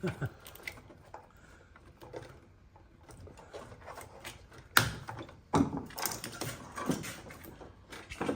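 Scattered clicks, knocks and rustling of an old car wiring harness being cut and pulled loose, with a sharp snap about five seconds in and another hard knock shortly after.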